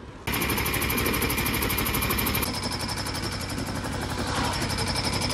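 Motorized sugarcane juice crusher running with a fast, steady rattle, starting abruptly a fraction of a second in.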